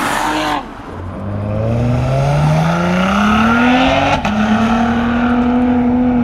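Cadillac ATS-V's twin-turbo 3.6-litre V6 with aftermarket downpipe, running hard. It rushes past at the start, then accelerates with the engine note climbing steadily until an upshift of the eight-speed automatic drops it about four seconds in, and it pulls on in the next gear.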